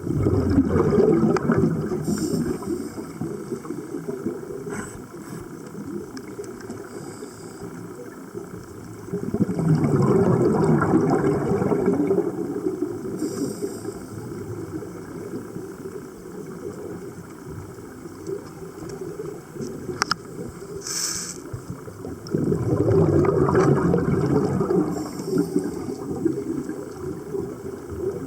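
Scuba diver's regulator heard underwater: three long bursts of exhaled bubbles rumbling, about ten seconds apart, with faint regulator hisses between them.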